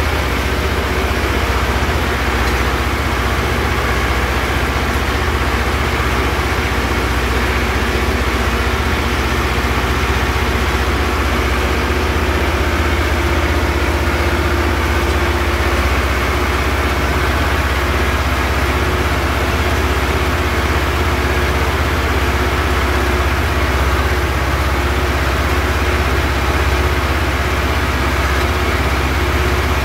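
Farm tractor's diesel engine running steadily at a constant working speed, heard from the driver's seat while it drives a rotary tedder through hay.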